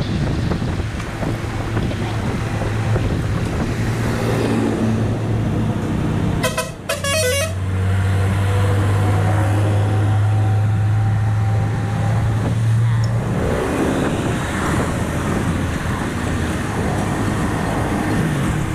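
Heavy diesel truck (Hino Ranger, J08E turbo inline-six) passing close by with a steady low engine drone, loudest as it goes past. A short horn blast sounds about six and a half seconds in, amid general road traffic.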